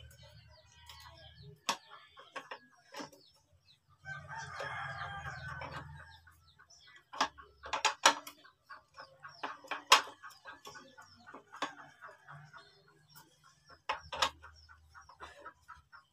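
A rooster crows once about four seconds in. Sharp metallic clicks and taps come from a tool worked against the carburetor of a small Loncin gasoline engine, the loudest about eight and ten seconds in.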